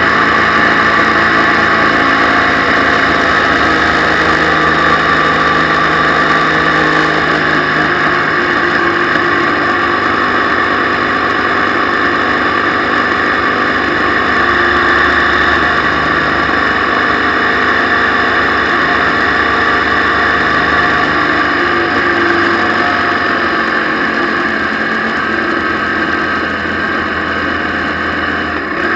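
Motorcycle running at road speed, its engine note shifting a few times, under steady wind and wet-road noise on the bike-mounted camera.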